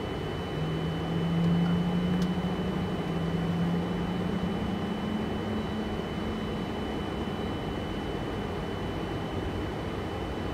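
Boeing 747-400 flight deck noise: a steady airflow hiss with a faint high whine. A low hum comes in about half a second in, rises a little in pitch, and fades out by about eight seconds. A single click comes about two seconds in.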